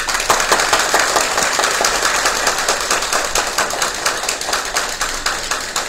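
Audience applauding, breaking out all at once and slowly dying down.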